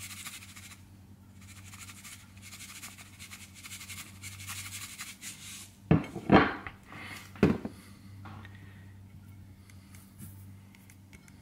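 Seasoning shaken from a shaker onto a salmon fillet on a plate, a fine rapid rattle of granules. About halfway through come a few loud knocks of dishware against the counter, then quieter sounds of fingers rubbing the seasoning into the fish, over a steady low hum.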